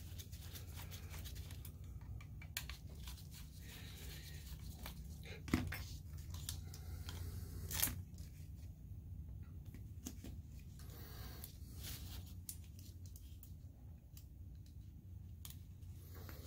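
Faint handling sounds of a DLP projector's optical engine and DMD chip being worked on by gloved hands: scattered small clicks, scrapes and rustles, with two louder knocks about five and a half and eight seconds in, over a steady low hum.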